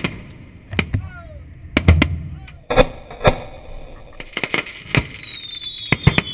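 Fireworks going off at close range: a rapid string of sharp bangs and cracks. A steady hiss runs for about a second and a half near the middle, and a falling whistle starts about five seconds in.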